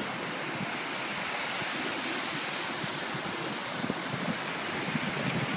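Surf breaking on a sandy beach: a steady, continuous wash of waves from a rough sea.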